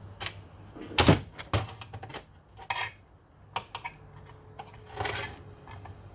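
Small metal parts being handled on a workbench: scattered clinks and knocks, the loudest about a second in.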